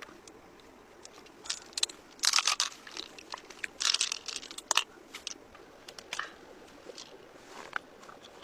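Pearls and the wet flesh of a large opened shell being handled by hand: scattered light clicks, with two short crunchy, rustling bursts about two and four seconds in as the pearls are put back into the shell.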